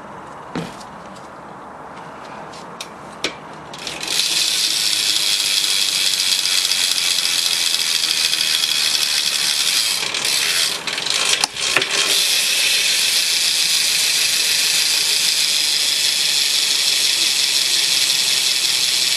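Rear hub of a BMX bike freewheeling as the rear wheel spins, its pawls clicking over the ratchet so fast they make a loud, even buzz. A few light clicks come first, the buzz starts about four seconds in, and it breaks off briefly around the middle before going on.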